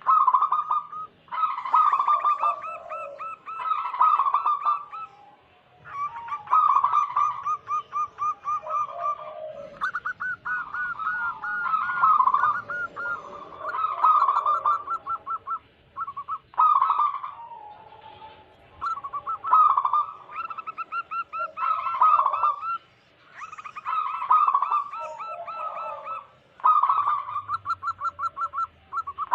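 Wild zebra dove (perkutut) singing vigorously: phrase after phrase of rapid, evenly spaced cooing notes, each phrase a couple of seconds long, with short pauses between.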